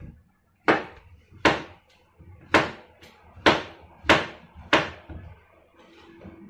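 Kitchen knife slicing through a peeled banana and knocking on the cutting board: six sharp knocks, roughly a second apart.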